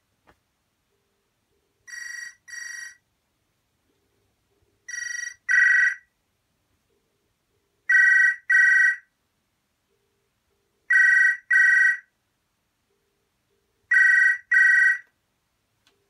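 A 1988 BT Viscount telephone's electronic ringer rings in the British double-ring cadence: five pairs of short two-tone rings, one pair every three seconds. It is turned down soft for the first pair and the first ring of the next, then is back at full loudness from about five seconds in.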